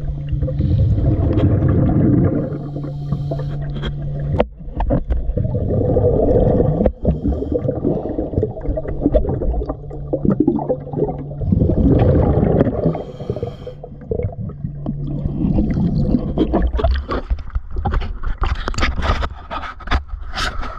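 Underwater, a scuba diver's breathing through the regulator, with loud bursts of exhaled bubbles gurgling every few seconds, over a low steady hum. There are occasional sharp knocks.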